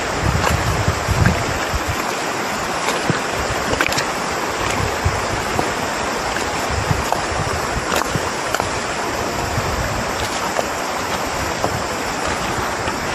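River water rushing and flowing steadily. Wind buffets the microphone with low rumbles in the first two seconds.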